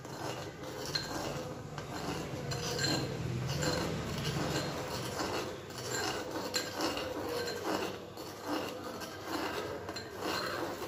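Metal spoon stirring milk in a small clay pot, scraping and clinking against the pot in repeated irregular strokes.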